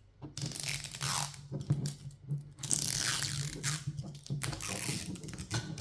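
Crinkling and tearing of a plastic seal being peeled off a Mini Brands toy capsule, in irregular crackling pulls.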